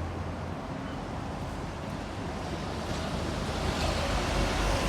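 City street noise: a steady wash of traffic rumble with wind on the microphone, getting a little louder in the second half.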